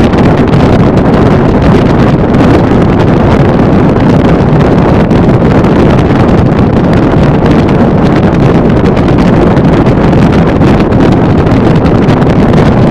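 Steady, loud wind blasting the microphone aboard a motorboat running at about 40 mph, the boat's rush over the water mixed in beneath it.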